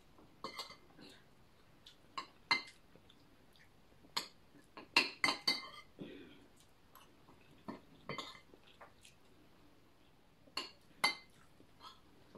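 Metal cutlery clinking against a ceramic plate and a glass bowl during a meal: a dozen or so scattered light clinks, with a quick run of them about five seconds in and two more near the end.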